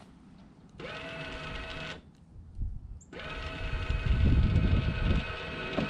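Truck camper's electric jack motors whining steadily in two runs, a short one about a second in and a longer one from about three seconds in, each starting with a slight rise in pitch as the motors spin up, with low rumbling under the second run.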